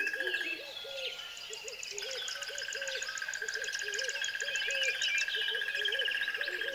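A chorus of wild animal calls: a steady pulsing trill, short hoot-like low notes repeated about three times a second, and scattered high bird chirps. The trill drops out about half a second in and returns about two seconds in.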